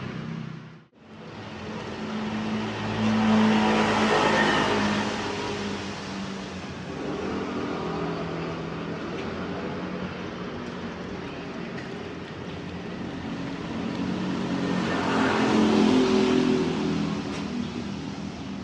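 Cars passing on a wet road: engine hum and tyre hiss swell and fade twice, loudest about four seconds in and again near sixteen seconds.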